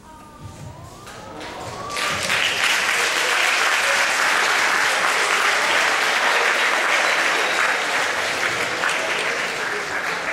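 Audience applauding, building up over the first two seconds, then holding steady and easing off slightly near the end.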